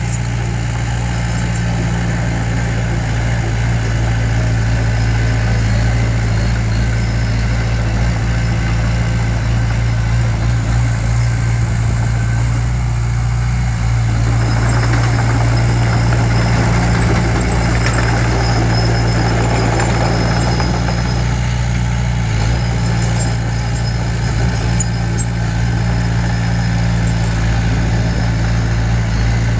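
Diesel engine of heavy construction equipment running steadily at a constant pitch, with a stretch of rougher added noise around the middle.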